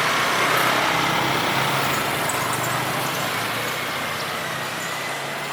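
Street traffic: a motor vehicle engine running close by in a dense wash of street noise. It is loudest about half a second in and slowly eases off.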